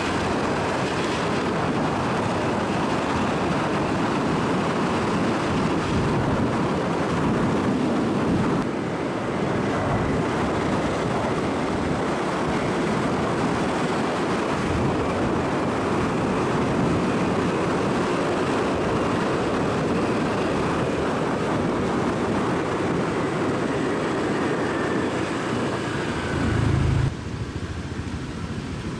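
Steady motor scooter riding noise: engine running with wind and road rush on a camera carried on the bike. About two seconds before the end it cuts abruptly to a quieter, even background.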